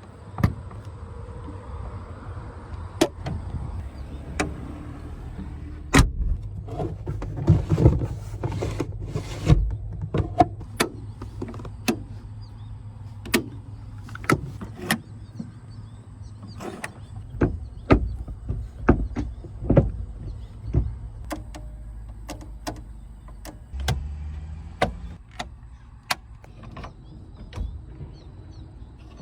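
Mercedes-Benz 300 SL Gullwing: a steady low hum with many sharp, irregular clicks and knocks over it.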